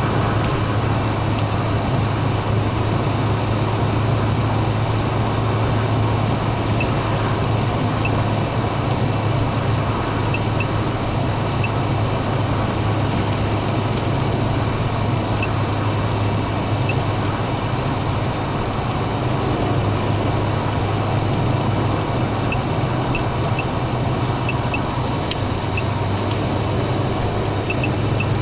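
Steady road and engine noise inside a car cabin at highway cruising speed, with a strong low hum. Faint, short high beeps come now and then at irregular intervals.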